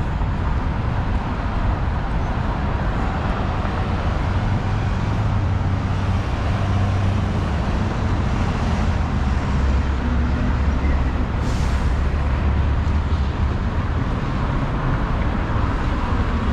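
Steady city street traffic: cars running past on the road, with a deeper low rumble building in the middle as a heavier vehicle goes by.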